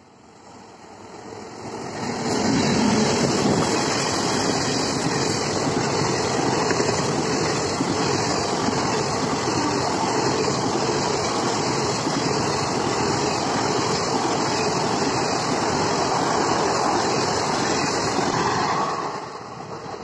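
Indian Railways express train, an electric locomotive with coaches, passing close by at speed. The noise builds over about two seconds as the locomotive arrives, holds as a steady loud rush of wheels on rail while the coaches go by, and falls away just before the end as the last coach passes.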